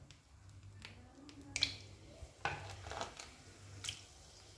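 A few light clicks and taps as whole spices are dropped into hot oil in a kadai, with a little faint crackling from the oil.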